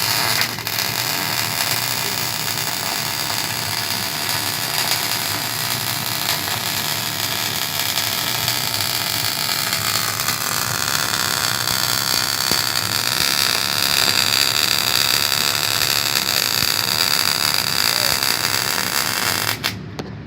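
MIG welding arc from a Miller CP-302 power source: a steady hiss that cuts in at once and stops abruptly near the end, as a long bead is run.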